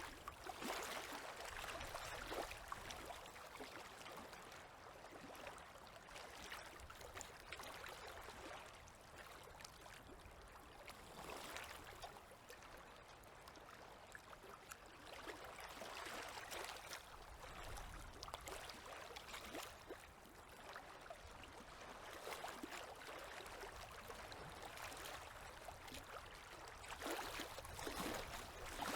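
River water lapping gently at the shore, a soft, faint splashing that swells every few seconds.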